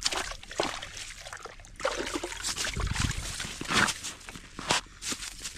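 An arctic char, just pulled out through an ice-fishing hole, thrashes and splashes in the wet slush on the ice while it is grabbed by hand. There are irregular wet slaps and scrapes, and a dull thump about three seconds in.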